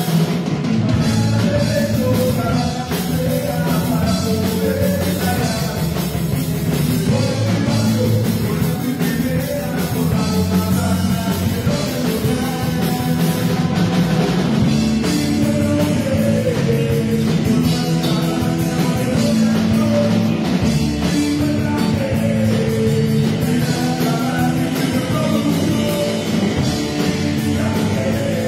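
Live rock band playing loudly: electric guitars, electric bass and a drum kit, with a male lead singer singing.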